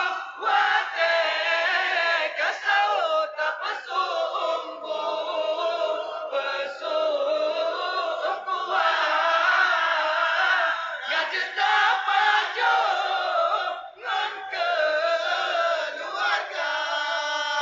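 Group of young men singing an Islamic sahur wake-up chant together, a lead male voice holding long, wavering notes over the others.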